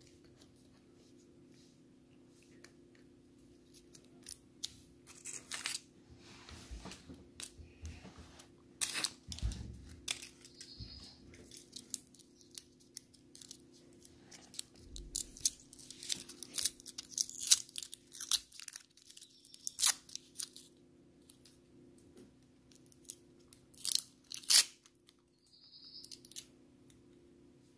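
Maoam Bloxx chewy-candy wrappers crackling and tearing as they are peeled open by hand, in irregular clusters of sharp crinkles starting about four seconds in, loudest in the second half.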